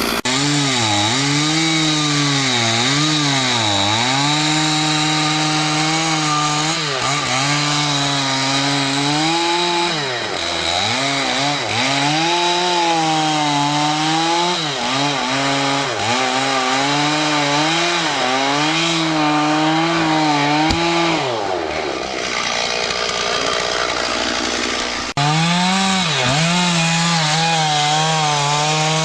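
Chainsaw running hard while cutting through a large tree trunk, its engine note repeatedly sagging and recovering as the chain bites into the wood. About three-quarters of the way in the saw drops away, then it comes back sharply at full throttle.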